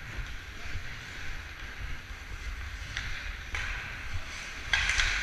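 Ice hockey skates hissing and scraping over rink ice in strides, a few sharper scrapes from about three seconds in and near the end, over a low rumble of wind on the microphone.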